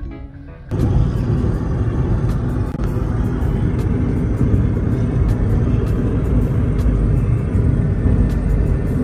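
Road noise inside a moving car: a steady low rumble of engine and tyres. It cuts in suddenly about a second in.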